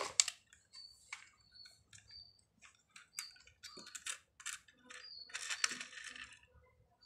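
A hard plastic toy auto rickshaw being turned over and handled: irregular clicks and rattles of plastic body and wheels.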